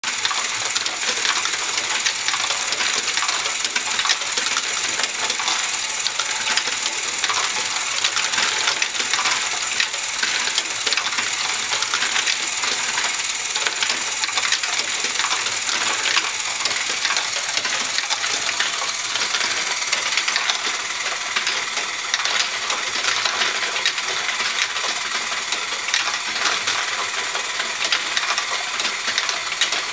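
Small plastic LEGO balls clattering and rolling through the chutes and paddle wheel of a LEGO Great Ball Contraption (GBC). It is a constant dense patter of hard plastic-on-plastic clicks.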